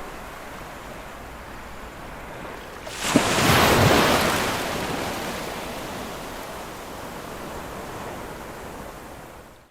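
Sea waves on a beach: a steady surf wash, with one wave breaking loudly about three seconds in and its foam slowly receding, fading out at the end.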